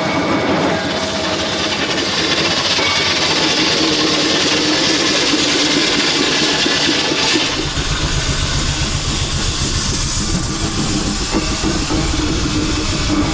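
Steam road roller running close by on a tarmac road: a steady hiss, then from about halfway through a deep, fast-fluttering rumble.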